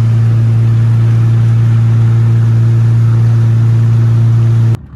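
A boat's outboard motor running at a steady pitch under way, loud and unchanging, cutting off abruptly near the end.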